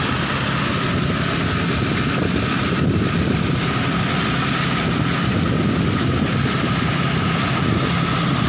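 Kaset Pattana 'Ngern Mee' rice combine harvester running steadily, its engine and threshing machinery working under load as it pushes through flattened, waterlogged rice.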